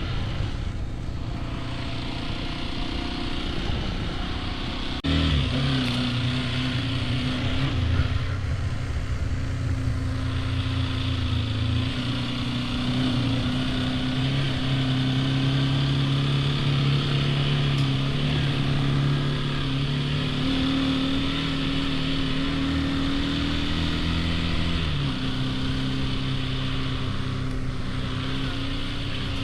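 Hero XPulse 210's single-cylinder engine running under way. Its note jumps up sharply about five seconds in and steps down again near the end.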